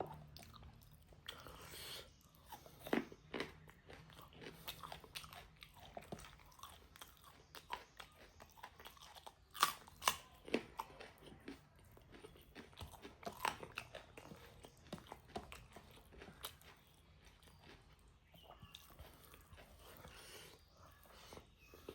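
Close-up eating sounds: a person chewing and biting pork with rice, with wet mouth clicks and irregular crunches, a few sharper crunches standing out about 3, 10 and 13 seconds in.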